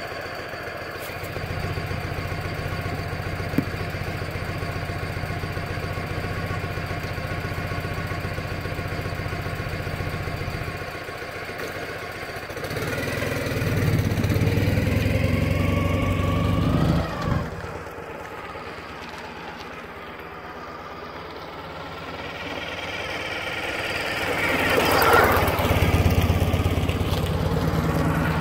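Ural Troyka sidecar motorcycle's air-cooled flat-twin engine idling steadily, with one sharp click a few seconds in. About halfway through it revs and rises in pitch as the bike pulls away, drops off as it rides away, then grows louder again and is loudest as it comes back past near the end.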